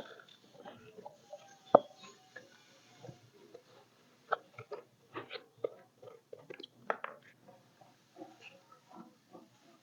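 Scattered light clicks and taps at irregular spacing, with a sharper knock about two seconds in.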